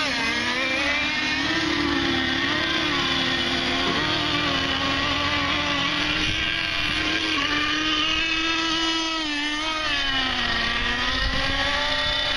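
Several radio-controlled model racing boats' small engines running at high revs, a high-pitched whine whose pitch wavers up and down as the boats race and turn. The pitch dips about ten seconds in, then climbs again.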